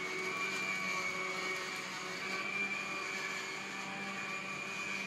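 Steady whir of a small electric motor with a high, even whine over it.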